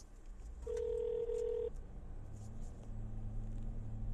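A telephone line tone heard on hold while the call is being put through: one steady beep lasting about a second, followed by a low steady hum on the line.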